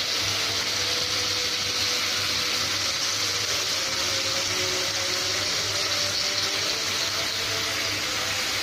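Marinated chicken slices sizzling steadily in a little ghee on a hot tawa, an even high hiss with a low hum beneath.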